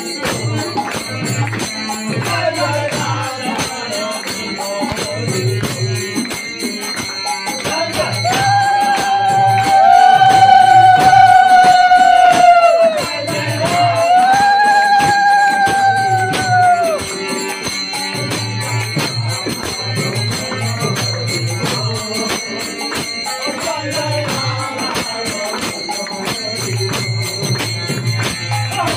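Kirtan music: a khol drum beating a rhythm under kartal hand cymbals, hand-clapping and chanting voices. About a third of the way through, two long, loud held notes sound one after the other.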